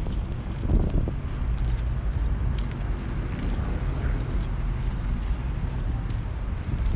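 2020 Harley-Davidson Street Glide Special's Milwaukee-Eight 114 V-twin running steadily through a Rinehart exhaust, briefly louder just under a second in.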